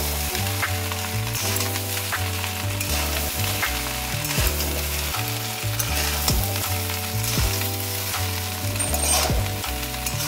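Rice frying and sizzling in a kadai over a high gas flame while a metal spatula stirs it, scraping and tapping against the pan at irregular moments. Background music with steady low bass notes plays underneath.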